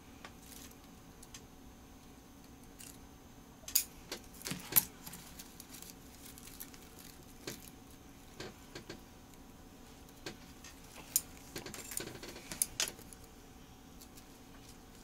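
Bonsai scissors snipping twigs off a Korean hornbeam bonsai: scattered sharp snips and light metallic clicks, in clusters about four seconds in and again around eleven to thirteen seconds.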